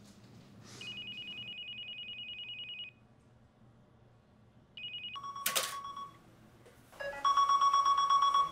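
Electronic telephone ringing: a fast-trilling two-tone ring for about two seconds, a short second ring about five seconds in that is cut by a sharp click, then a louder, lower pulsing electronic tone near the end.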